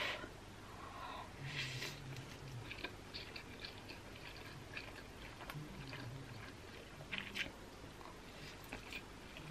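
Close-up slurping and chewing of a big mouthful of yakisoba stir-fried noodles, with wet mouth clicks throughout and an airy slurp about one and a half seconds in. A short low hum comes twice.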